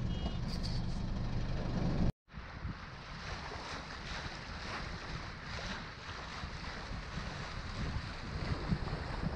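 Sailboat under way: a low steady engine rumble, then an abrupt cut about two seconds in to wind noise on the microphone and water washing along the hull.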